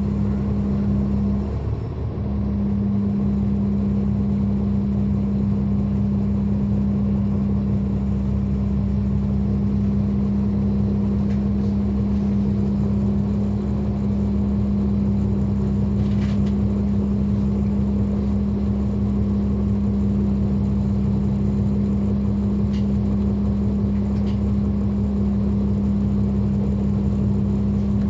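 Caterpillar C13 ACERT diesel engine of a NABI 40-foot suburban transit bus running at a steady pitch, heard from on board: a constant droning hum over a low rumble, which drops out briefly about two seconds in.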